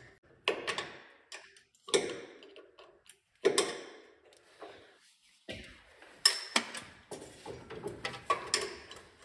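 Wrench and bolts clinking on a metal bracket: irregular metallic clicks and knocks, a few sharper strikes with a short ring.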